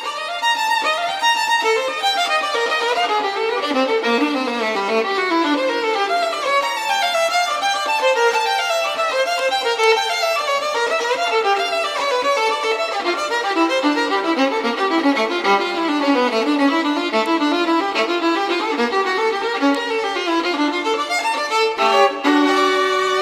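Violin music: a continuous line of quickly moving notes.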